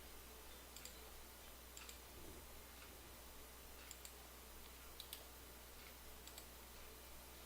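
Faint computer mouse clicks, a few scattered single clicks over a low steady room hum.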